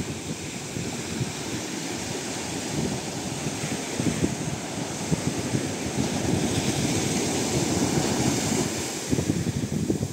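Small waves breaking and washing up a sandy beach, a steady surf hiss that swells louder in the second half and eases near the end, with wind buffeting the microphone.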